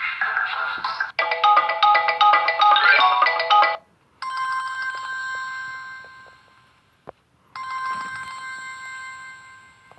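Samsung Galaxy Fame Lite ringtones playing from the phone: one tune cuts off about a second in, a quick many-note melody follows until nearly four seconds, then a single chime tone sounds twice, each fading out over about two and a half seconds, with a short click between them.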